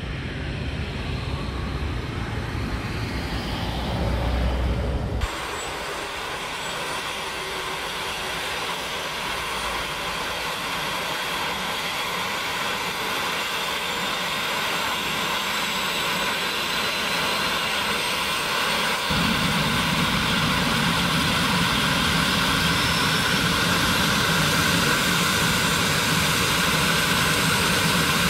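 Airbus H145 rescue helicopter's turbine engines starting up, a whine that rises steadily in pitch. About two-thirds of the way in a deeper steady sound from the rotor joins it. Wind rumbles on the microphone for the first few seconds.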